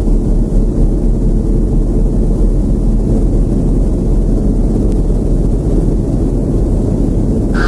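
Steady, loud low rumbling drone of an ambient "space" effects soundscape, noise-like, similar to a distant jet or wind. A higher sustained tone comes in at the very end.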